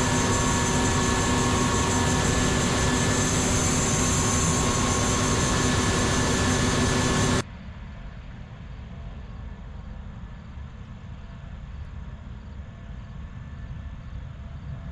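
Combine harvester running steadily while cutting soybeans, a loud machine drone with a few steady high whines. About halfway through it cuts off abruptly to a much quieter, steady machine hum.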